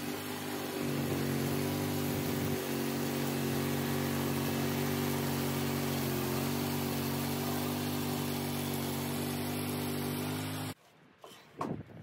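Gasoline engine of a Range Road 5032 portable bandsaw mill running steadily under load as the band blade saws a pear log. The engine sound cuts off suddenly near the end, followed by a few sharp wooden knocks as a sawn slab is handled.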